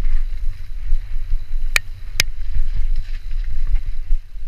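Mountain bike descending a dirt singletrack: steady low rumble of wind buffeting the action camera's microphone and the bike rolling over rough ground, with two sharp clicks about half a second apart near the middle as the bike rattles over bumps.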